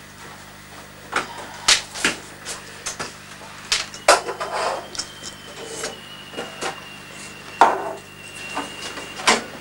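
Irregular knocks and clatter of hard household objects, a dozen or so at uneven spacing, the loudest about four seconds in and again past halfway. A faint thin whistling tone is held steady from about four seconds in until near the end.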